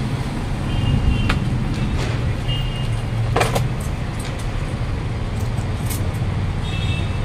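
Steady low rumble of background noise, with a few faint scratches and several short high-pitched tones over it.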